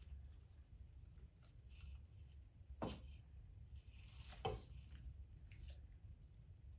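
Mostly near silence, with a tegu's jaws snapping on food in a steel bowl: two short sharp clicks, about three seconds and four and a half seconds in, and a few fainter ticks.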